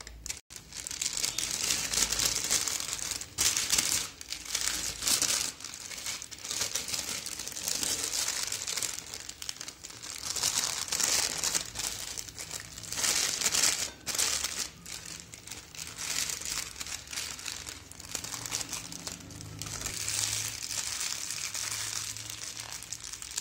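Butter paper crinkling and rustling as it is folded and pressed by hand around a rolled paratha, swelling and easing unevenly as the hands work it.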